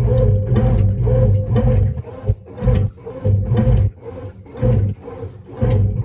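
Brastemp BWF08 top-loading washing machine agitating a load of clothes in water, the motor and agitator running in short, repeated pulses with a deep hum as the agitator swings back and forth.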